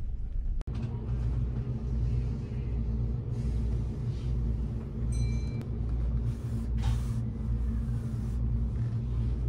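Steady low rumble and hum inside the Kintetsu Hinotori express train's passenger car, with a short high beep about five seconds in.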